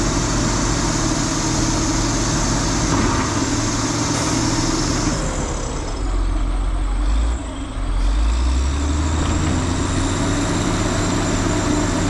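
Heavy diesel engine of a truck or earthmover running steadily, its note shifting partway through as the load or throttle changes.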